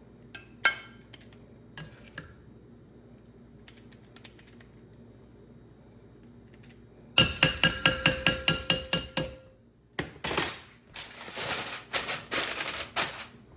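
A few faint clicks, then a metal spoon knocking quickly and repeatedly against a metal pot, about a dozen ringing clinks in two seconds, followed by a few seconds of scraping and rustling as baked beans are served.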